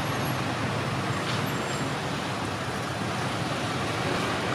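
Steady rushing background noise, even and unbroken, with no distinct calls or knocks standing out.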